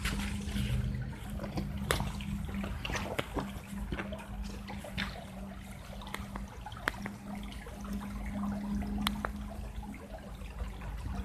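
Shallow stream water running and trickling through a concrete culvert, with scattered sharp splashes and drips over a steady low hum.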